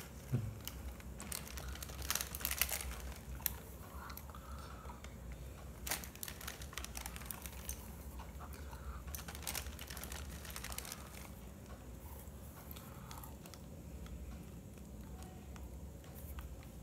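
Faint, scattered small clicks and rustling of chopped roasted almonds being sprinkled by hand onto cake batter in stainless steel tumblers, the pieces and fingers ticking lightly against the metal.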